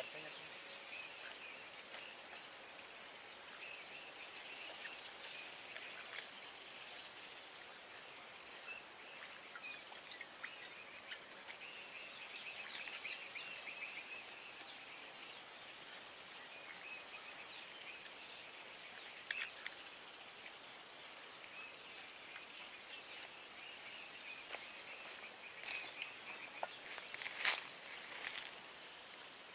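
Outdoor ambience of insects chirping steadily, with scattered short bird chirps. In the last few seconds there are a few louder rustles and crackles close by.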